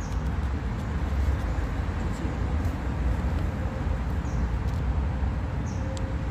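Steady low outdoor rumble, with a few faint, short, high falling chirps.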